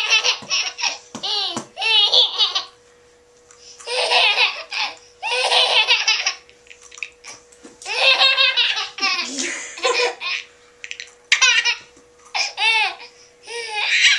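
A toddler laughing in about six bursts of high-pitched giggling, each a second or two long, with short pauses between.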